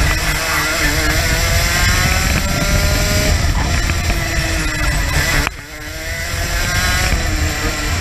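Racing kart engine at high revs, heard from the onboard camera: its pitch climbs for about three seconds, drops sharply about five and a half seconds in as the throttle is lifted, then climbs again. Low wind rush on the microphone throughout.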